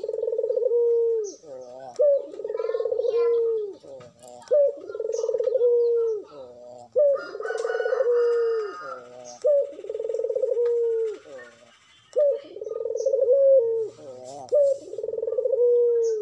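Barbary dove (puter) cooing over and over, about seven coos each a second or so long, every two to three seconds: a short rolling stutter and then a long drawn-out low 'krooo'. It is the advertising coo of a bird in full breeding condition, bowing as it calls.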